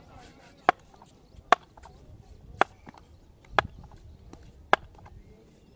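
Six sharp wooden taps, roughly one a second at uneven spacing: a cricket bat being tapped on the concrete pitch at the crease while the batsman waits for the delivery.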